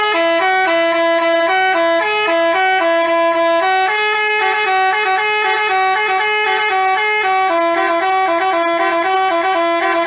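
Basuri telolet bus horn playing a tune: a fast run of loud, stepped horn notes changing every fraction of a second, sounding without a break.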